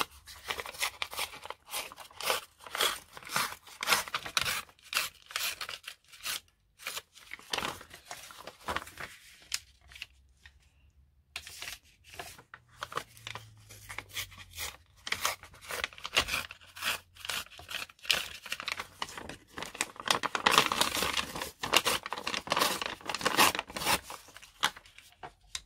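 Coffee-dyed craft paper being cut and torn to size: a long run of short, rasping paper strokes, with a pause of about a second and a half about ten seconds in.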